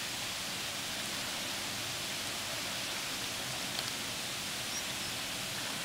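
Tidal water pouring back through river flood gates at high tide, a steady even rush of churning, foaming water as the incoming tide backflows upstream.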